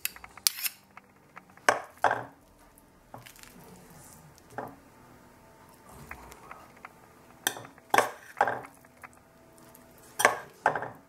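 Metal serving spoon and fork clinking and scraping against a ceramic bowl and a steel pot as lettuce salad is scooped across. The knocks come irregularly, about every second or two, with the sharpest clinks about two seconds in, around eight seconds in, and near the end.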